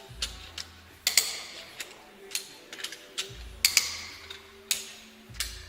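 Irregular sharp metallic clicks and knocks of hand tools and a jack at work on a car's wheel, with a few low thuds, near the start, halfway through and near the end.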